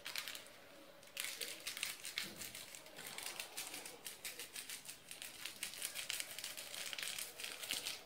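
A small Sazón seasoning sachet crinkling as it is handled and shaken out over a bowl of cornmeal. A dense run of crackly crinkles starts about a second in.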